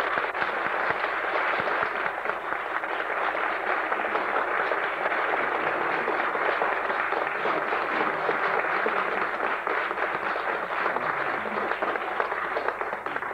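Opera-house audience applauding: dense, steady clapping.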